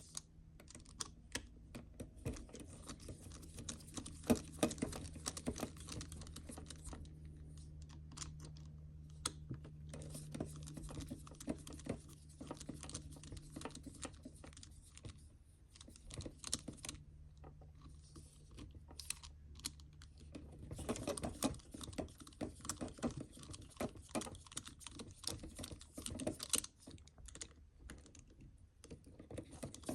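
Small irregular clicks and light rattles of a screwdriver, tiny screws and plastic parts being handled as a small RC crawler's portal axle is taken apart. A faint low steady hum runs beneath and stops about two-thirds of the way through.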